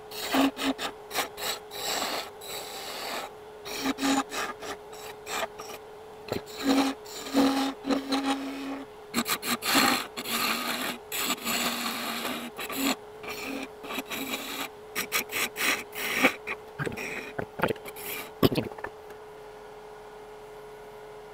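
Spindle gouge cutting a spinning wooden mallet blank on a wood lathe: irregular scraping bursts of shavings coming off, over the lathe's steady hum. The cutting stops near the end, leaving only the hum.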